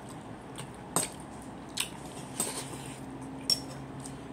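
Someone eating with their hands, with wet chewing and several sharp clicks and taps. The loudest clicks come about a second in and about three and a half seconds in.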